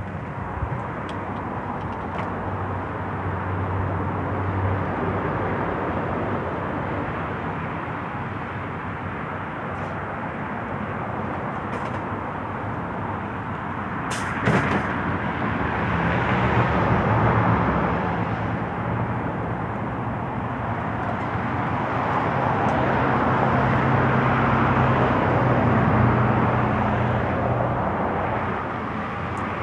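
Road traffic going by: a steady rumble of engines and tyres that swells and fades as vehicles pass, with one short sharp clank about halfway through.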